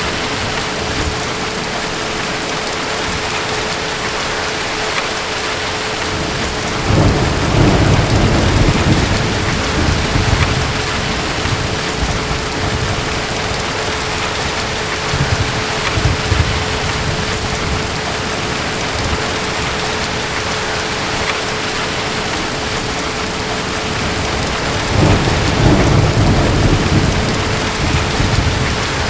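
Steady rain with distant thunder: a deep rumble rolls in about seven seconds in, a short one around the middle, and another near the end.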